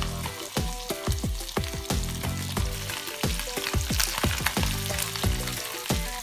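Rava-and-chilli-coated Indian mackerel (bangda) fillets sizzling and crackling in shallow hot oil in an iron pan as they begin to fry, with a music track playing underneath.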